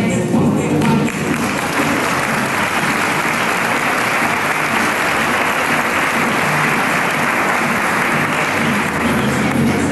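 Audience clapping. The applause swells in about a second in over the music and fades near the end as the music comes back up.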